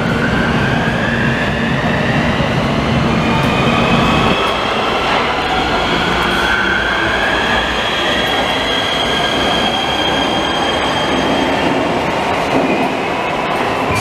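Nuremberg U-Bahn train running into the station and braking, its electric drive whining in tones that glide up and down over the rumble of the wheels. A high steady squeal holds through the second half as the train slows to a stop.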